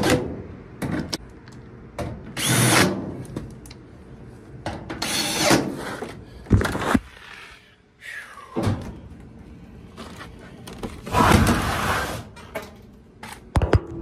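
Cordless drill running in several short bursts, backing screws out of a dryer's sheet-metal top panel. Knocks and clatter of the panel being handled come in between, with a sharp knock near the end.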